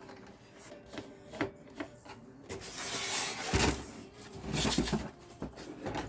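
A few sharp clicks and knocks, then two longer stretches of scraping or rubbing, the second shorter than the first.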